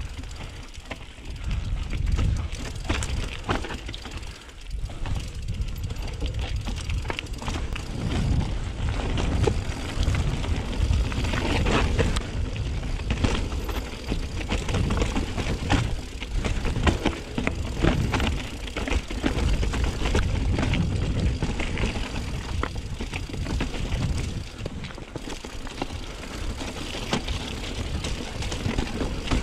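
Mountain bike riding down a rough trail: tyres rolling over gravel and rocks with a dense, irregular run of clicks, knocks and rattles from the bike, over a constant low rumble, as picked up by a chest-mounted camera.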